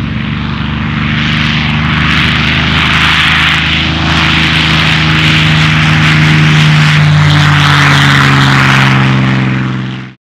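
A steady engine drone under heavy wind rush, which cuts off abruptly near the end.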